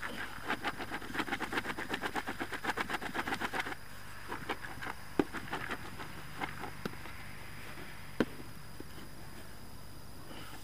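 Feeder groundbait and coated fishing pellets shaken around in a bait bowl to mix them. The rhythmic rustle goes at about seven quick strokes a second and stops suddenly about four seconds in. A few scattered light taps follow.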